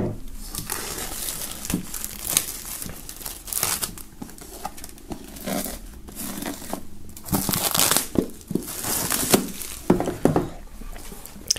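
Plastic shrink-wrap film being torn and peeled off a box, crinkling irregularly as it is pulled away.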